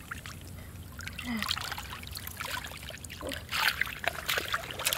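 Shallow muddy water sloshing and splashing as bare feet and hands move through it, with a few louder splashes about three and a half seconds in.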